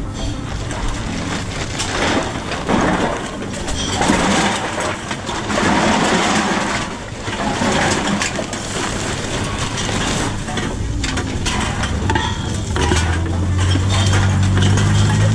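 Empty cans and bottles clattering and clinking as they are fed into a container-return (reverse vending) machine, with the machine's mechanism working them through. A low steady hum comes in near the end.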